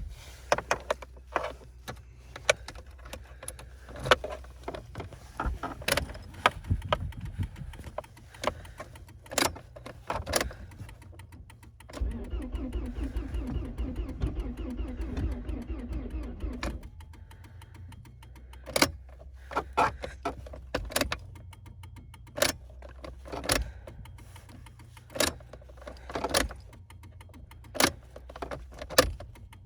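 1999 Volvo S40's 1.8-litre four-cylinder engine cranked over by the starter for about five seconds midway, struggling to start in the cold, amid repeated sharp clicks and knocks and a low steady hum.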